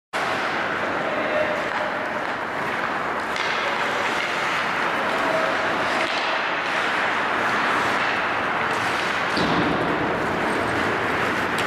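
Ice rink sound during a hockey game: a steady hiss of skates and play on the ice, with faint distant shouts from the players.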